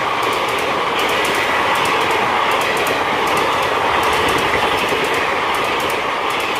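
Passenger coaches of an express train passing at speed without stopping, a steady rushing noise with the rhythmic clatter of wheels clicking over rail joints.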